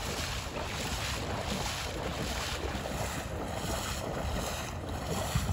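Marsh water splashing and sloshing around a person's waders as they wade through knee-deep water, a surge of splashing with each stride.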